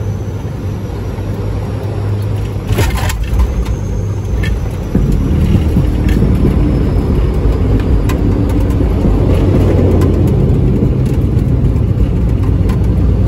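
Cockpit noise of a Bombardier Dash 8 Q400 landing: the steady drone of its PW150A turboprops and propellers, touchdown bumps and rattles about three seconds in, then a louder, rougher rumble from about five seconds in as the aircraft rolls out on the runway, with small rattles of the cockpit.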